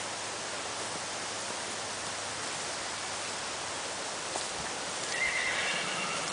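Steady outdoor hiss, and about five seconds in a horse whinnies once: a short, high call lasting about a second.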